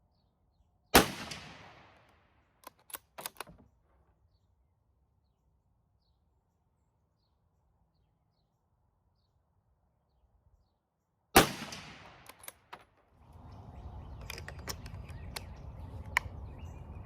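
Two shots from a Savage Axis bolt-action rifle in .223, about ten seconds apart, each echoing away. Each shot is followed by a few sharp metallic clicks as the bolt is worked to eject the case and chamber the next round. A steady low rustling noise starts near the end.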